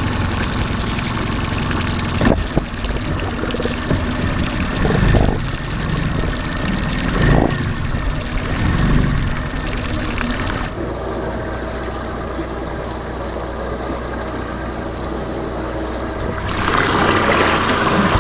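Small tiller outboard motor running as the boat moves, with a few thumps in the first half. About ten seconds in the higher hiss falls away, leaving a steadier low hum, and the sound grows louder again near the end.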